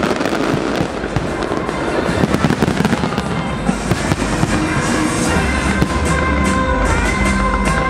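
Fireworks display: rapid bangs and crackling from bursting shells, one after another. Music plays along, growing clearer and steadier from about five seconds in.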